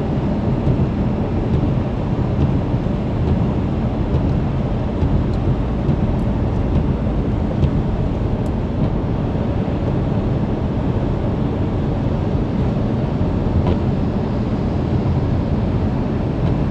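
Steady low rumble of a car driving, with tyre and road noise over a road strewn with ice and melting hail.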